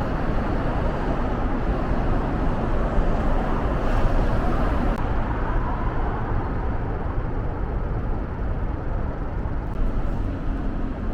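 Steady road traffic rumble, swelling slightly about four seconds in as if a vehicle passes.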